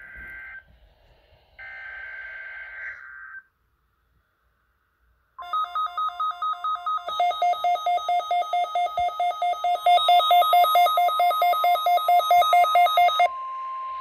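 NOAA weather radio broadcast of a required weekly test: the last two buzzy bursts of the digital SAME header, a short pause, then the steady warning alarm tone. Weather radio receivers' alert beeps pulse rapidly over the tone and get louder about seven and ten seconds in, then stop shortly before the end while the steady tone holds.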